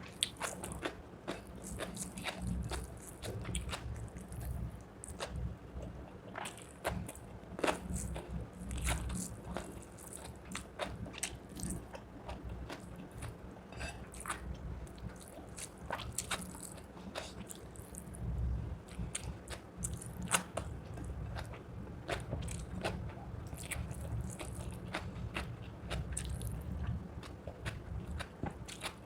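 A person eating rice with chicken leg curry close to the microphone: biting and chewing, with many irregular sharp clicks.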